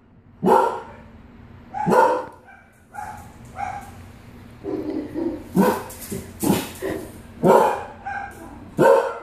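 Dog barking repeatedly in alarm at an unfamiliar object: about ten sharp barks and shorter yips, unevenly spaced, the loudest coming in the second half.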